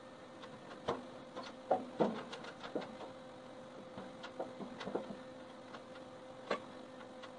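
Steel door panel being handled and fitted on a welded steel smoker box, giving a handful of irregular light metal knocks and clanks with short ringing.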